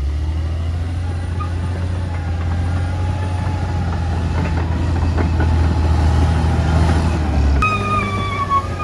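Caterpillar D6R XL bulldozer's diesel engine running steadily with a deep drone. About seven and a half seconds in, background music with a melody comes in over it.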